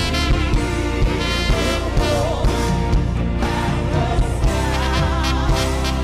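Live worship band playing upbeat music with a steady beat, guitars, keyboard and drums together.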